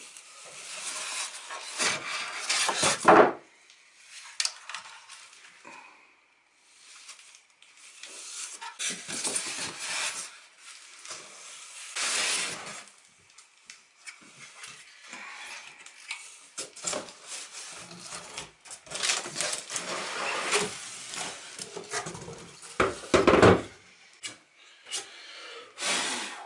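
Unpacking a mitre saw: polystyrene foam packaging and a cardboard box rubbing, scraping and creaking as the saw is lifted out, with knocks of metal and plastic parts being handled and set down. The sounds come in irregular bursts, the loudest about three seconds in, about twelve seconds in, and over a stretch near the end.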